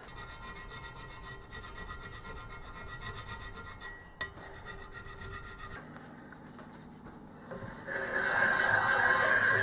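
Hand scraper being pushed in short, quick, repeated strokes across a lathe casting: metal scraping metal, with a faint ringing from the workpiece. The strokes ease off around the middle, then come back louder about eight seconds in.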